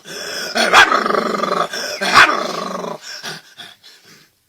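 A man imitating an angry dog with his mouth: a rough growl broken by two loud barks, fading out after about three seconds.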